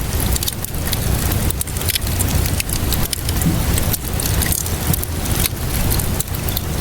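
Wood fire crackling in a fireplace, with many small pops and snaps over a steady low rumble.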